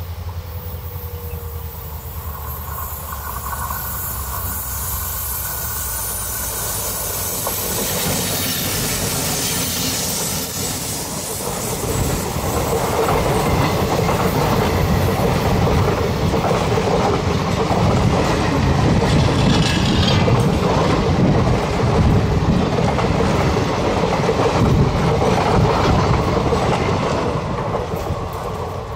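Diesel-hauled passenger train going past: the WDP-4 locomotive's EMD engine hums as it approaches, then from about halfway the coaches pass close by with a loud rumble and rapid clatter of wheels over the rails, easing as the last coach draws away near the end.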